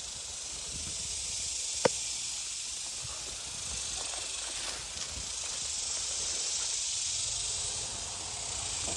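Steady high-pitched drone of insects in summer grass, with one sharp click about two seconds in.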